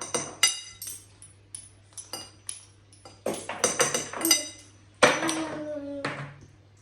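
Metal spoon clinking and tapping against a mixing bowl, a dozen or so separate ringing clinks in irregular clusters, while baking powder is added to biscuit dough.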